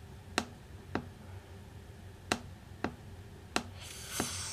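Computer mouse clicking: six sharp single clicks, roughly in pairs about half a second apart, as points are picked in an on-screen colour field. A brief soft hiss near the end.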